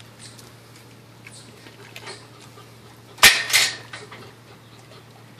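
German Shepherd eating a raw chicken drumstick: faint wet chewing and mouthing clicks, with one sudden loud, sharp sound in two quick parts a little past the middle.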